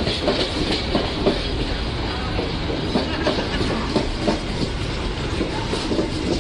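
Economy-class passenger coaches rolling past close by, their wheels clacking irregularly over the rail joints above a steady rumble.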